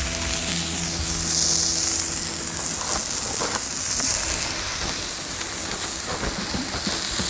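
Sliced red onions sizzling in oil on a hot flat-top griddle: a steady frying hiss with a few faint ticks.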